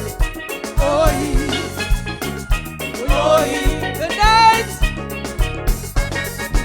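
Calypso band music: steel pan melody over bass and a regular kick-drum beat, with some wavering held notes about a second in and again near the middle.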